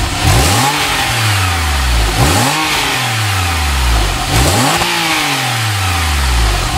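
Porsche 911 Carrera 2S's 3.8-litre flat-six engine revved three times while stationary, heard at the twin exhaust tips. Each blip rises quickly in pitch and sinks back slowly toward idle.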